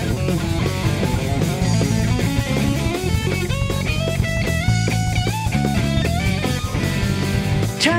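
Rock band playing live, an instrumental passage with guitar over bass and drums.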